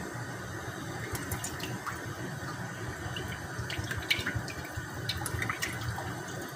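Cooking oil pouring from a bottle into an empty frying pan, splashing against the pan's surface. The splashes are thickest in the second half.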